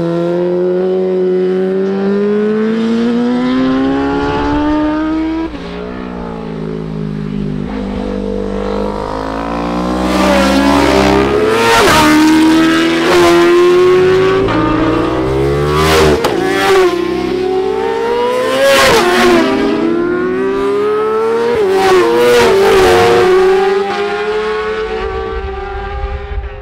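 Racing motorcycles at full throttle accelerating past in turn, engine pitch climbing and then dropping sharply at each upshift. One bike pulls away in the first few seconds; a louder run from about ten seconds in holds several quick gear changes.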